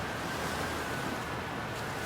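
Steady rushing noise, like wind and surf, with a faint steady high tone over it.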